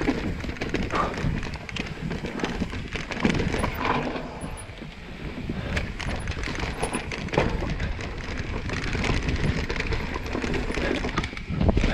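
Mountain bike riding down a rough dirt trail: tyre noise over the ground with frequent rattling clicks and knocks from the bike, over a low rumble of wind on the microphone.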